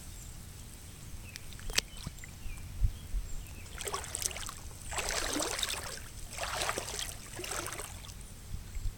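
Boots splashing through shallow floodwater: four or five sloshing steps from about four seconds in, after a couple of light knocks.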